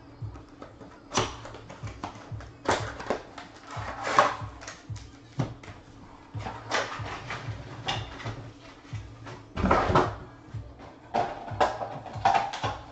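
Background music under irregular crinkling and light knocks of a cardboard trading-card box and foil pack being handled.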